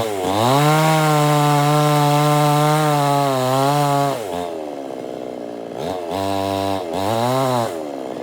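Chainsaw engine revved up to high throttle and held for about three and a half seconds, then dropping back to idle, then blipped twice more in short revs near the end.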